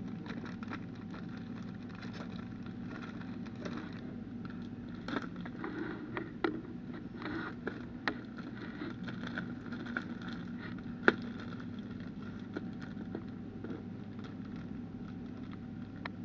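Steady low hum of indoor store background with scattered small clicks and rustles from a body-worn camera moving, and one sharper click about eleven seconds in.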